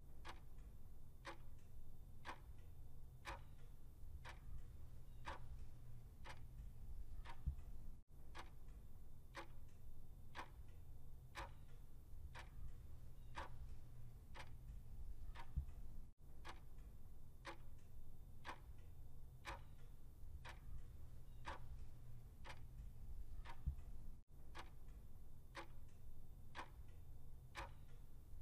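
Clock-ticking countdown sound effect, one tick about every second, over a low steady hum. It marks the running quiz timer.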